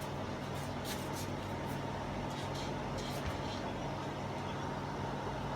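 A steady low electrical-type hum over background noise, with a few faint light clicks and taps from handling the opened TV.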